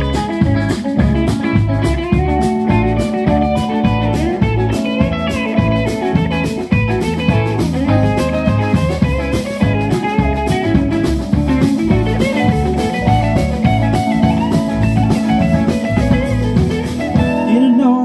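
Live band playing an instrumental break: an electric guitar leads with bending notes over drum kit, upright bass and keyboard. The drums drop out near the end.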